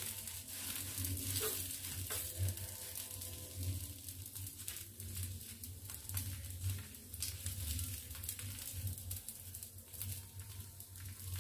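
Crepe batter sizzling in an oiled flat pan while a spoon spreads it round, with light scraping clicks, over a low steady hum.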